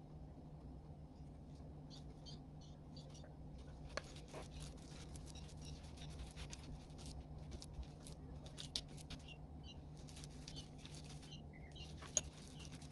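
Gloved hands coating pork belly slices in marinade: small, irregular sticky clicks and squelches, with a few sharper ones, over a steady low hum.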